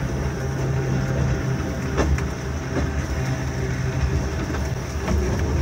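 Volk's Electric Railway's short-wheelbase two-axle electric car running on 825 mm narrow-gauge track: a steady low motor hum under the rumble of wheels on rail, with a few sharp knocks about two seconds in and again near the end. Wind buffets the microphone.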